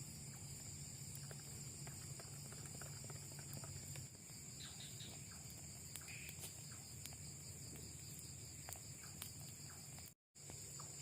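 Crickets and other night insects trilling steadily and faintly, a high-pitched pulsing chorus, with scattered faint clicks. The sound drops out briefly near the end.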